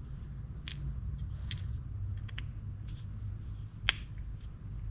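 Scattered light clicks and taps of small metal fishing-reel parts being handled during a teardown, the loudest a sharp tick about four seconds in, over a low steady hum.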